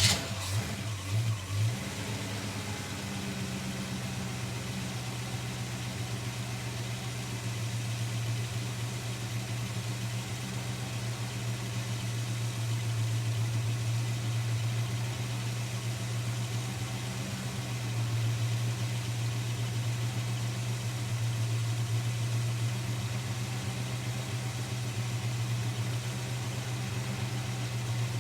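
Holden HK's engine cranking briefly, catching, and settling into a steady idle after about two seconds. It is not yet running quite right, with the distributor timing and coil still to be sorted, in the owner's view.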